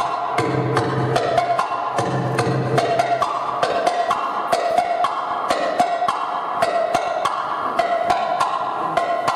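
Oriental belly-dance music: a busy, sharp percussion rhythm under a melody of held notes, with a low bass part that drops out about three seconds in.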